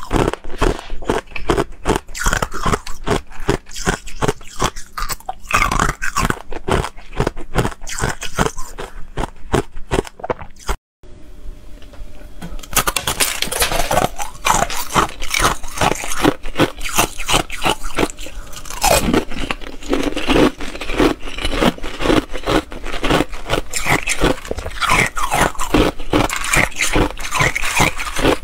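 Ice cubes being bitten and chewed, a dense run of sharp crunches and cracks, broken by a brief cut-out about eleven seconds in before the crunching starts again.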